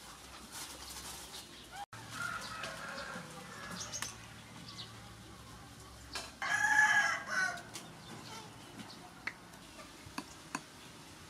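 A rooster crows once, a little over a second long, about six and a half seconds in. Softer chicken calls come before it and a few sharp clicks after it.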